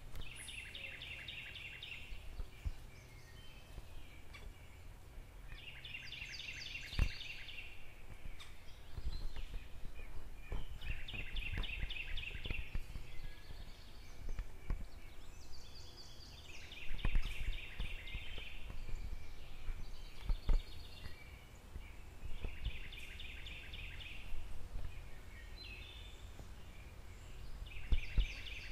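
A songbird repeating a short trilled phrase of rapid notes, each about a second long, roughly every five seconds, with a few fainter higher chirps between. Underneath are a steady low rumble and occasional knocks.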